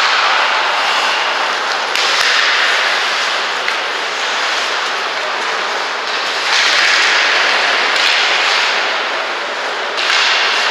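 Ice hockey rink noise: a steady hiss of skate blades scraping the ice, swelling louder three times, with a few faint knocks of sticks or puck.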